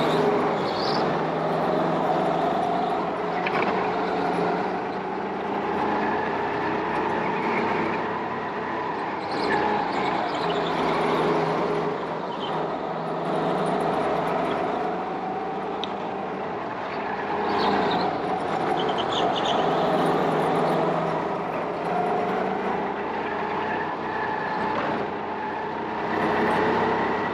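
Go-kart engine running hard, its pitch rising and falling every few seconds as the kart speeds up and slows for corners.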